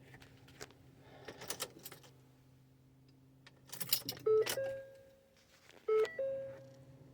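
A few light rattling clicks, then an electronic two-note chime, a short lower note rising to a longer higher one, sounding three times about a second and a half apart.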